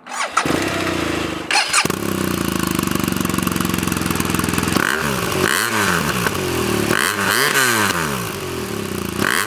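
The 2016 BMW R1200 RS's two-cylinder boxer engine starts up and settles into a steady idle. From about halfway it is revved in a series of quick throttle blips, each rising and falling in pitch.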